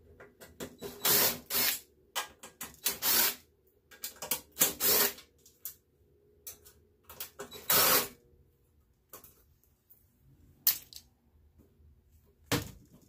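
Metal parts of a computer case being handled and worked loose by hand: a dozen or so irregular clicks, rattles and scrapes, with quiet gaps between them.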